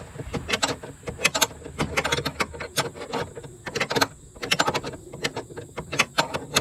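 An 18 mm box-end wrench working a torque-mount bolt loose, giving irregular sharp metal clicks and ticks, several a second.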